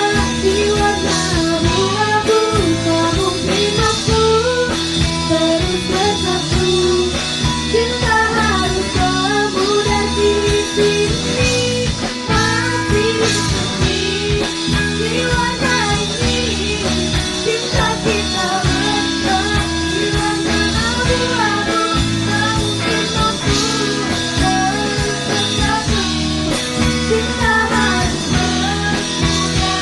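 A woman singing a song into a microphone, with instrumental accompaniment.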